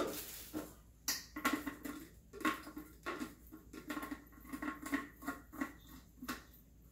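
Ninja blender's hard plastic cup and lid being handled and twisted together: a string of light clicks and knocks with short bouts of plastic rubbing on plastic.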